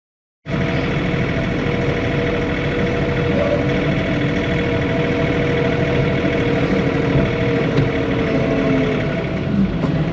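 John Deere 3046R compact tractor's diesel engine running steadily, heard from inside the cab, its hum dropping slightly in pitch near the end.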